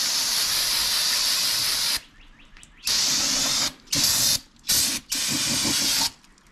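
Aerosol can of brake cleaner spraying through its straw nozzle: one continuous hiss of about two seconds, then four shorter bursts with brief gaps between them.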